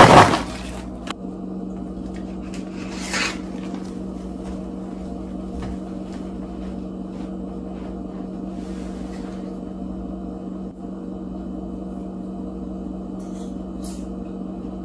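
Paper microwave-popcorn bag crinkling loudly as it is crumpled by hand, then a steady low hum under a few faint clicks and rustles.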